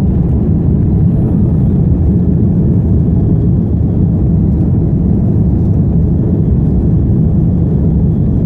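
Airliner's engines and airflow during the takeoff climb: a steady, loud low rumble.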